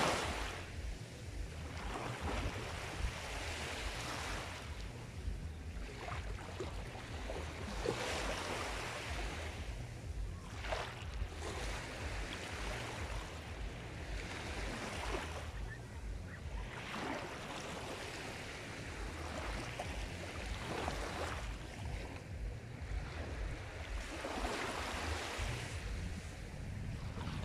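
Sea waves: a steady wash of surf that swells every few seconds over a low rumble.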